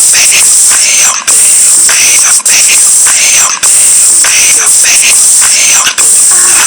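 A hip hop song played very loud and heavily distorted, with a steady beat and a harsh hiss.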